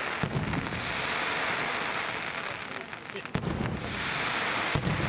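Aerial fireworks shells bursting overhead: sharp bangs at the very start, again a third of a second in, after about three seconds and near the end, over a continuous loud hiss between them.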